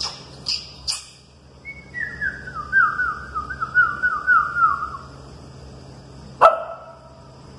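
Young puppies whining and yelping: a few short sharp yips at first, then a run of about ten short, high whines, each falling in pitch and the run sinking lower as it goes, and one loud yelp near the end.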